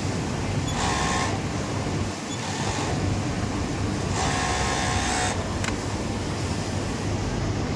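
Steady hum of machinery on a garment factory floor, broken twice by the buzzing run of an industrial sewing machine: briefly about a second in, then for about a second near the middle.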